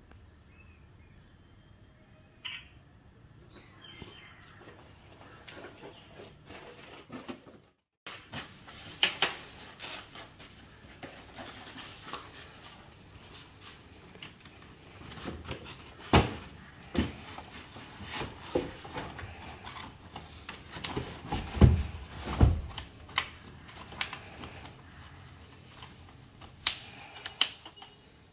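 Irregular clicks and knocks of hands handling parts in a car's engine bay around the battery, quiet at first and busier in the second half, with a few louder knocks about two-thirds through.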